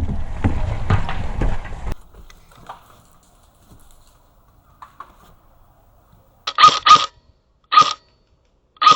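Rumbling movement and wind noise on the microphone for about two seconds, then near quiet, then an airsoft gun firing sharp, ringing pops: two close together about six and a half seconds in, a single one a moment later, and a quick cluster of three at the end.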